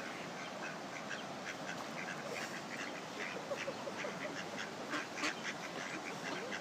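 Mallard ducks calling: a steady run of many short, high calls, with some lower quacking calls from about three and a half seconds in.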